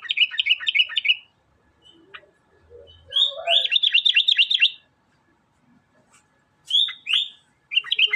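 Sooty-headed bulbul (kutilang) singing vigorously in three bursts of quick, repeated chirping notes, separated by short pauses.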